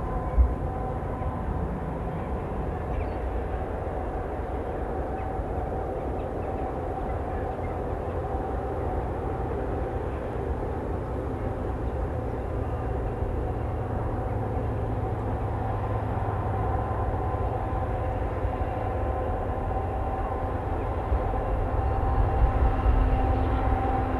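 Freightliner Class 70 diesel locomotive (GE PowerHaul V16 engine) approaching at the head of a container freight train: a steady engine drone that grows louder near the end as it draws closer. A single short thump comes just after the start.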